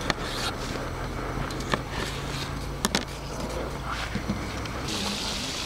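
Kitchen knife slicing a tomato and an onion on a plastic cutting board: a few scattered sharp taps of the blade striking the board, over a low steady hum. A brighter hiss comes in near the end.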